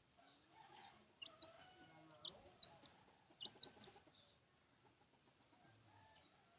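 Chicken calling: about ten short, high, sharp calls in three quick groups, from about a second in until about four seconds in, then faint background.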